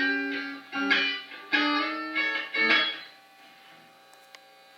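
Plucked guitar music: a few notes and chords rung out one after another, dying away about three seconds in.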